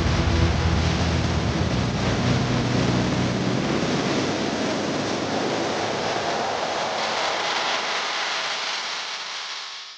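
Steady rushing noise with a low hum under it; the hum thins out after about four seconds and the noise fades away near the end.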